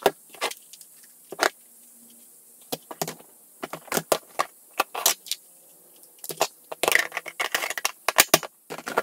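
Hard plastic clicks, knocks and rattles of a cordless stick vacuum being taken apart and cleaned by hand, its brush head and dust container handled to clear out trapped cat hair and debris. Short sharp clicks come scattered through, with a denser stretch of scraping and rattling about seven seconds in.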